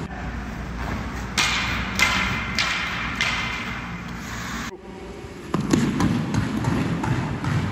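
Hockey skates on ice: a run of sharp scraping strokes of the blades, about one every half second through the middle, then low uneven thuds and knocks after a brief cut-out.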